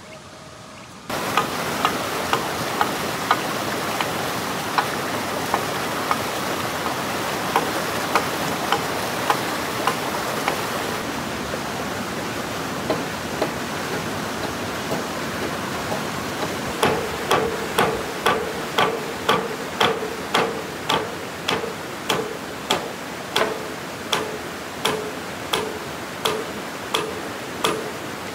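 Repeated blows of a hand tool on wood, starting about a second in, loosely spaced at first and then steady at about two strikes a second with a slight ring to each blow, over a steady hiss.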